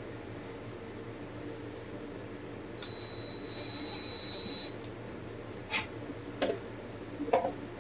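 Light clicks and clinks of small brass pieces and a hand tool being handled, three sharp ones in the last two seconds, the last the loudest. Under them runs the steady hum of a running heater. About three seconds in, a thin high whine holds for about two seconds.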